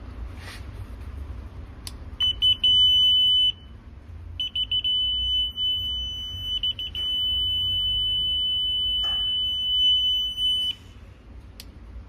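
Electronic buzzer of a KDS SUPER RAY ATL-55G laser marking tool sounding a steady high beep: a short one about two seconds in, then, after quick stuttering pulses, a long one of about six seconds that cuts off near the end. A few light clicks sound around the beeps.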